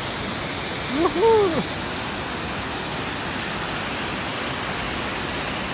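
Mountain waterfall cascading over rocks: a steady rush of water. About a second in, a brief call rises and falls in pitch over it.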